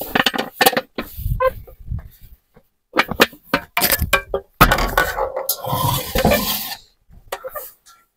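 A plastic basin and the things inside it clattering and clinking as it is carried and handled, in a run of irregular knocks, with a denser stretch of clatter past the middle.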